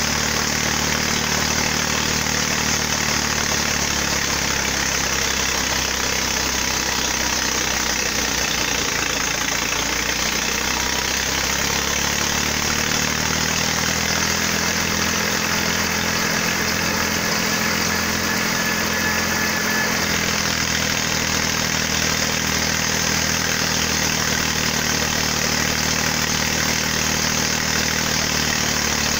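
Wheat thresher running steadily, driven by an Eicher 485 tractor's three-cylinder diesel engine: one continuous mechanical din of engine and threshing machinery at an even level.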